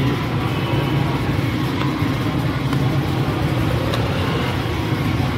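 Steady street traffic: motor vehicle engines running with a continuous low rumble, with a few light clicks over it.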